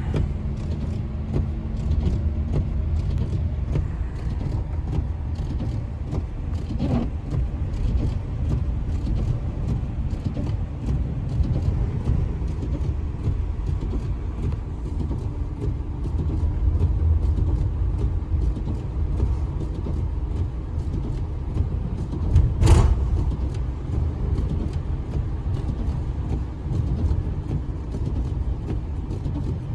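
Snowstorm wind blowing in a steady low rumble, with scattered faint ticks and one sharp knock about 23 seconds in.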